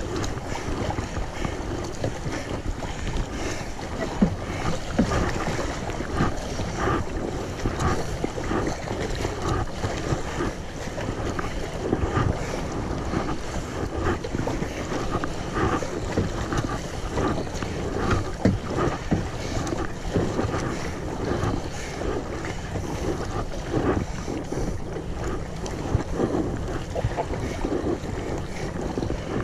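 Continuous rushing and splashing of rough river water around a kayak, with many short irregular splashes and wind buffeting the microphone.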